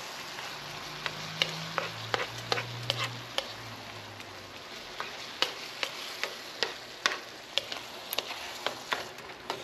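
Chopped tomatoes sizzling in a nonstick skillet while a spoon stirs them, with irregular clicks and scrapes of the spoon against the pan over a steady frying hiss.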